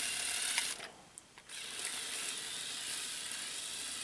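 Lego Technic gear train driven by a Power Functions XL motor, whirring and clattering as the truck drives on carpet. The drive stops for about half a second a second in, with a small click, then starts again as the truck reverses.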